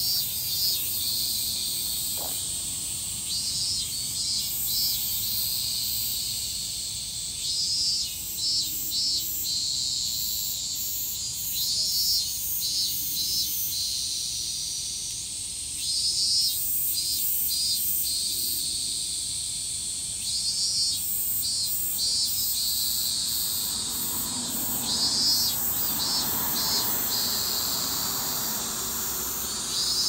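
Cicadas calling: a steady high shrill drone with short pulsed phrases over it, repeated every few seconds.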